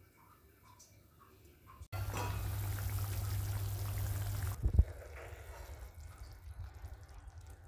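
Tomato rasa bubbling at the boil in an open pan. The bubbling starts abruptly after a quiet couple of seconds and runs loud for about two and a half seconds. A short low thump follows, then softer bubbling.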